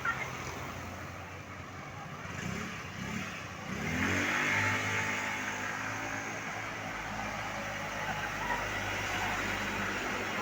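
Tour bus engine revving up about four seconds in, then running steadily as the bus accelerates.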